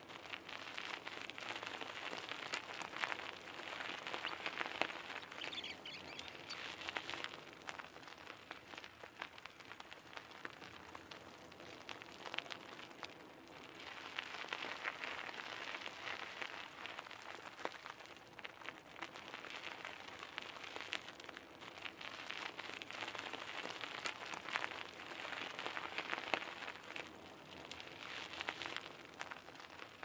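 Bicycle tyres rolling over a gravel path: a steady crunching crackle of small stones under the wheels that swells louder and fades back several times.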